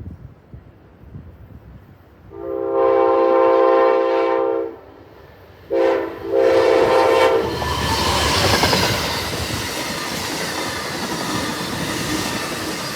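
Amtrak P42DC locomotive's multi-tone air horn sounding for a grade crossing: one long blast of over two seconds, a brief blast, then another of about a second. The passenger train then rushes past, its wheels clacking over the rails.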